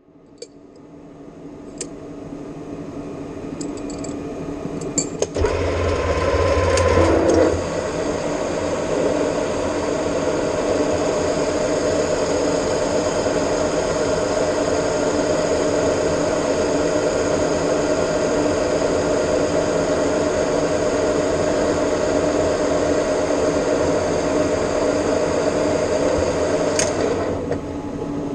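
Metal lathe running, the sound building over the first five seconds, then louder with a low hum and a steady high tone for about two seconds before settling into an even machine drone with several steady tones.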